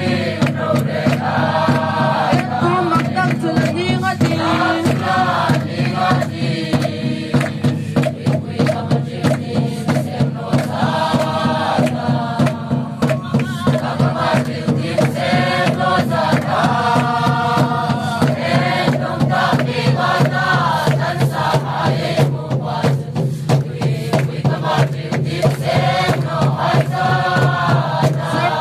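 A crowd singing a hymn together in phrases of a few seconds, to a steady beat on large double-headed drums.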